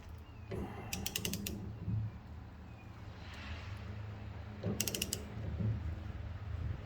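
Ratchet wrench clicking in two short bursts, about a second in and near five seconds, as it tightens a gear puller's forcing screw against a seized steering wheel that is not budging.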